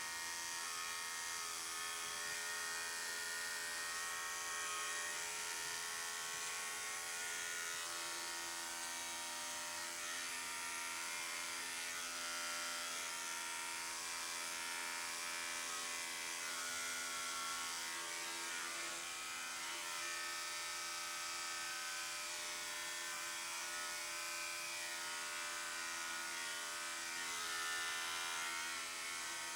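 Electric dog-grooming clippers running with a steady buzz.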